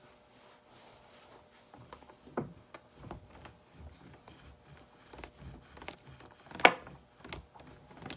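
Handling noises from a fermenting mead bottle being wiped down with a wet towel: light rubbing and scattered knocks, with one louder, slightly ringing knock about six and a half seconds in.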